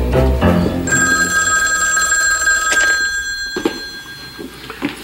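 Telephone ringing: one long ring that starts about a second in and lasts about two seconds, over the fading end of soft background music.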